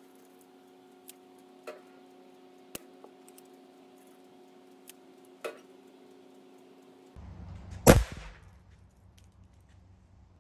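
A small homemade exploding target of potassium chlorate and dark aluminum powder, about 2.7 grams, going off with a single sharp bang about eight seconds in when hit by a BB. A few faint clicks come before it.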